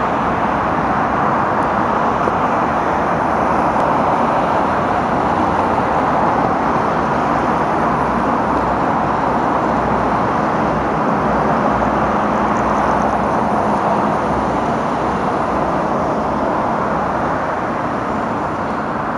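Steady rushing noise of distant road traffic, with a faint low hum from about twelve seconds in, as a DR1A diesel multiple unit approaches.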